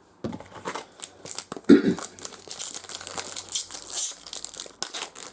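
Trading card pack wrapper being torn open and crinkled by hand, a dense crackling, with the loudest rip just under two seconds in.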